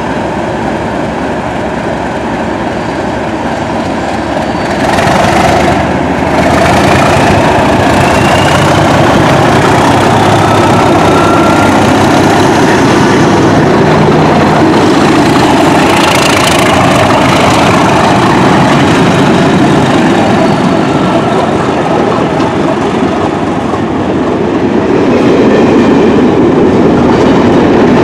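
A pair of Class 37 diesel locomotives top-and-tailing a test train as it pulls away. The leading loco's English Electric V12 diesel grows loud about five seconds in as it passes under power. The coaches then roll by with clickety-clack from the rails, and near the end the trailing Class 37's engine gets louder as it approaches.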